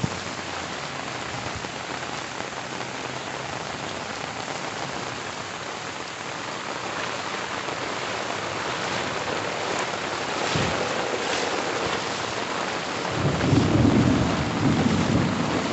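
Heavy rain falling steadily, with a louder low rumble of thunder starting about thirteen seconds in and fading over the last two seconds.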